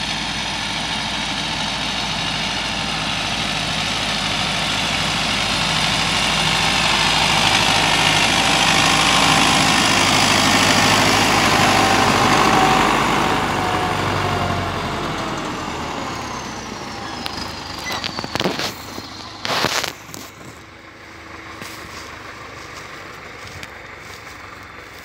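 Farm tractor's diesel engine hauling a loaded timber trailer drives past: it grows louder, is loudest about halfway through with its pitch falling as it goes by, then fades away. A few sharp knocks come near the end.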